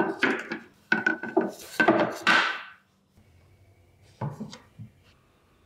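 Wooden drawer fronts being laid into a cabinet's face frame: the boards slide and knock against each other and the frame in a dense clatter for about three seconds. A few lighter taps follow near the end as one front is nudged into place.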